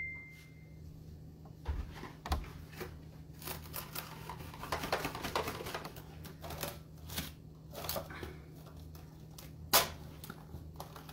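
Plastic cling wrap pulled off its roll, torn on the box's cutter and pressed over a bowl of dough to seal out air: a run of irregular crackles and clicks, with one sharp click near the end.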